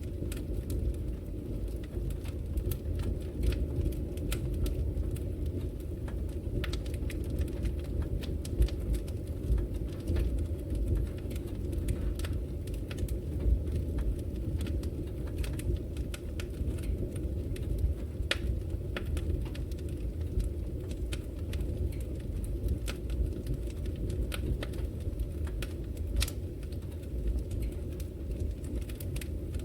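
Log fire burning in a fireplace: a steady low rumble of flames with frequent, irregular sharp crackles and pops.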